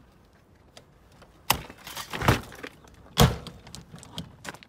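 Sharp clunks and rattles of a uPVC front door's lever handle and door being forced, starting about a second and a half in, with three loud knocks and a few lighter clicks after. The standard handle gives no resistance.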